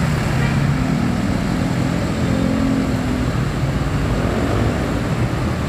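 Intercity bus engine running as the bus moves off, over steady road traffic noise.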